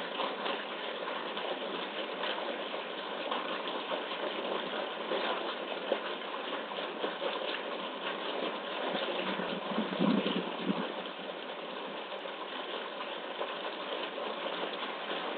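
Steady rushing noise of the pool's water circulation and pump, with a polar bear cub splashing at the water's edge about ten seconds in.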